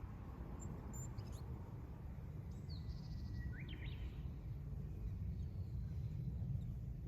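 A few short, faint bird chirps and rising calls, clustered in the first half, over a steady low outdoor rumble.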